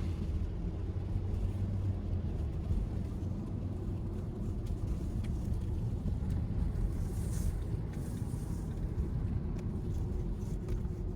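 Honda StepWGN minivan driving, heard from inside the cabin: a steady low rumble of road, tyre and engine noise, with a few faint clicks.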